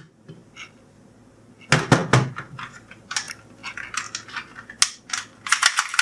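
Hard plastic toys clicking and knocking as they are handled and set down: a cluster of louder knocks about two seconds in, then a run of lighter clicks.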